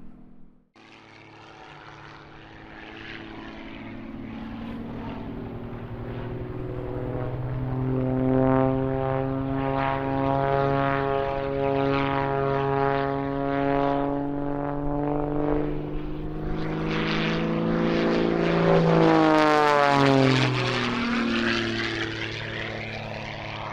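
Propeller engine of a Super Chipmunk aerobatic airplane in flight. It grows louder as the plane approaches, and the pitch drops sharply as it flies past about nineteen seconds in.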